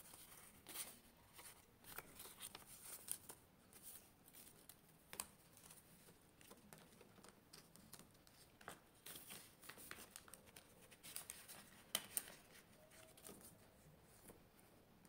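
Faint, irregular rustles and crinkles of paper banknotes being handled and counted, with soft plastic sounds as they are tucked into a binder's clear zip pouches.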